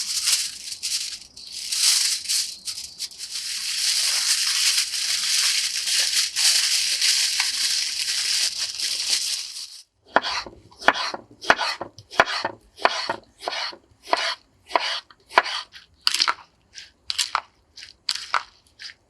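Several seconds of steady rustling hiss, which cuts off abruptly. Then come crunching footsteps on dry forest ground, at about two steps a second.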